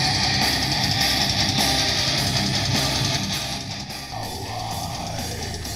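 Guitar music playing loud from a Boss Audio ATV30BRGB Bluetooth sound bar mounted on an ATV's rack, streamed from a phone. It gets quieter about three and a half seconds in.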